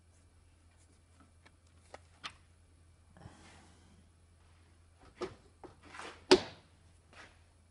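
A few scattered sharp clicks and knocks, the loudest about six seconds in, over a faint steady low hum.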